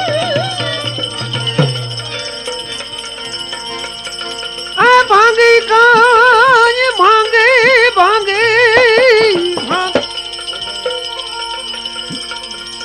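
Devotional bhajan music with a steady drone and jingling percussion. About five seconds in, a loud, ornamented melodic lead enters with a wavering, quavering pitch, and it stops about ten seconds in.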